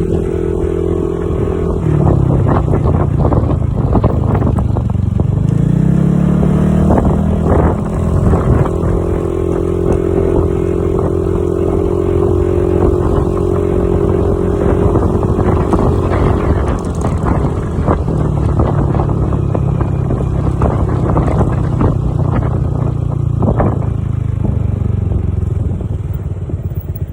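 Motorcycle engine running through a newly fitted Akrapovic slip-on silencer. It idles, climbs to a higher, steady speed about six seconds in, holds there for about ten seconds, then settles back to idle, with scattered light ticks throughout.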